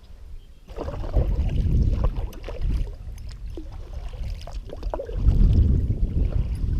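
Sounds of a kayak on the water: low rumbling swells that rise and fade a few times, with scattered small knocks against the hull.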